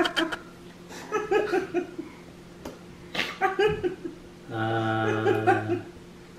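People laughing and giggling in three short bursts, then, about two-thirds of the way in, a steady low-pitched vocal hum held for just over a second.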